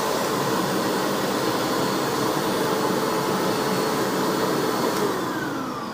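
Hoover Ultra WindTunnel Self Propelled upright vacuum running steadily, its motor sounding good to the owner. It is switched off about five seconds in, and its whine falls away as the motor spins down.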